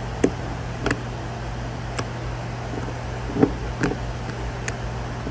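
About six sharp clicks at irregular intervals over a steady low hum: a removed engine oil control valve's plunger being worked by hand, sticking and freeing again, a sign of a varnished, sticking valve.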